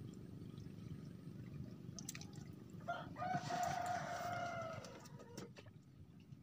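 A rooster crowing once, a single call of about two seconds starting about three seconds in and sagging slightly in pitch at the end, over a steady low rumble.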